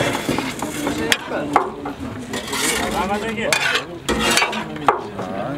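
A metal utensil stirring and scraping in a large cauldron of pilaf, with several sharp metallic clinks scattered through.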